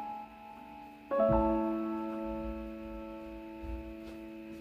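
Background piano music: soft chords struck, one about a second in, and left to ring and fade.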